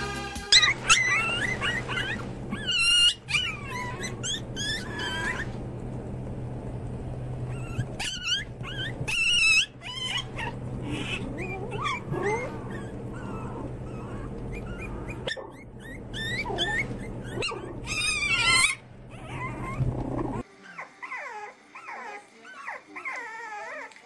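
Pomeranian puppies yipping and whining in many short, high-pitched calls over a steady low hum. About twenty seconds in, this cuts to fainter whimpering from French bulldog puppies.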